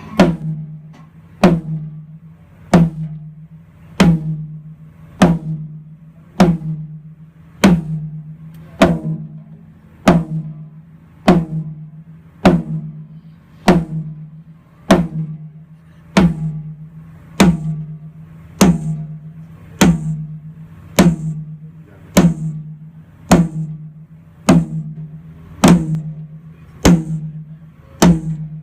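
A single drum of a drum kit struck over and over at a slow, even pace, about one hit every second and a bit, the way one drum is hit alone for a soundcheck or tuning. Each stroke rings out with the same steady pitch.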